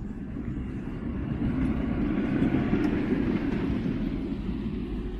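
A road vehicle passing close by: a low rumble with a hiss on top that swells to its loudest about half-way through and then fades.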